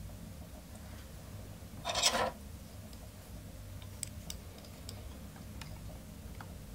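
Small handling noises of a treble hook and thread bobbin holder being worked by hand: a brief rasping scrape about two seconds in, then a few light ticks, over a low steady hum.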